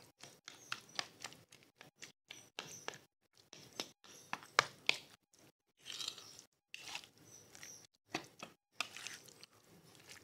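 A fork pricking masala-marinated chicken livers in a bowl: irregular sharp clicks of the tines, with wet squelching of the coated liver pieces as they are turned.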